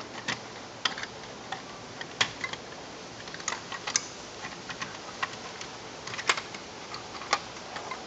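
Irregular light plastic clicks and taps from the casing of an Ei166RC optical smoke alarm as it is handled and fitted back together.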